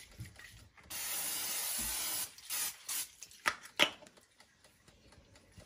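Vegetable-oil cooking spray hissing onto salmon fillets: one steady spray of about a second and a half, then a short second spray, followed by two sharp clicks.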